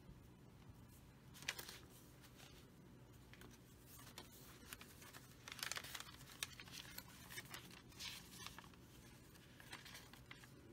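Faint rustling and crinkling of paper as the pages of a handmade junk journal are handled and turned, with scattered small clicks. The loudest bursts come about a second and a half in, around six seconds in, and about eight seconds in.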